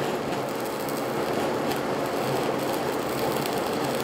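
Stick-welding arc crackling steadily as a 6013 electrode burns an open-root weld, running vertical uphill at 80 amps.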